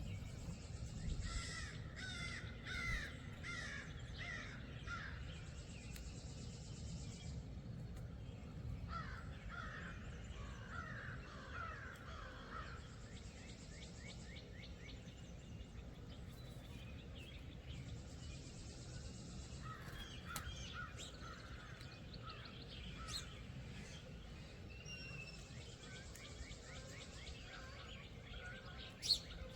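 Crows cawing in three bouts of repeated harsh calls, over a steady low outdoor rumble.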